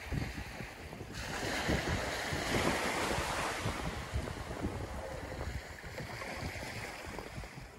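A small wave washing up over the sand and rolling back, swelling about a second in and fading again, with wind buffeting the microphone.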